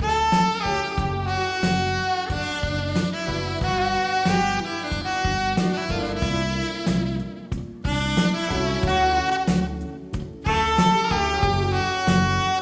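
Live jazz saxophone playing a melody of long held notes over a rhythmic bass and drum accompaniment, with brief breaks between phrases.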